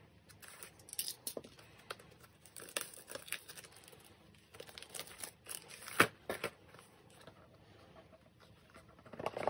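Plastic shrink wrap being slit with a box cutter, then torn and peeled off a cardboard album box, crinkling in short rustles. A single sharp click stands out about six seconds in.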